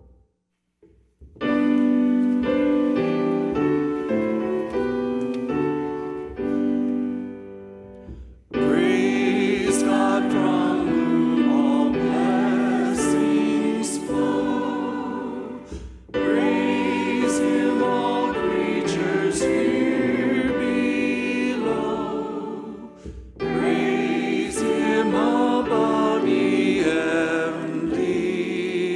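Choral singing with piano accompaniment. A short piano passage comes first, and the voices come in about eight seconds in, pausing briefly twice between phrases.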